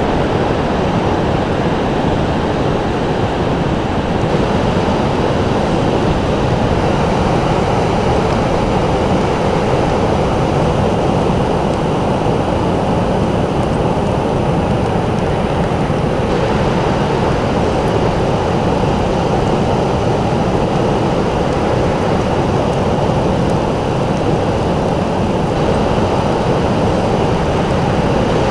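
Ocean surf making a steady, continuous roar, with no single wave crash standing out.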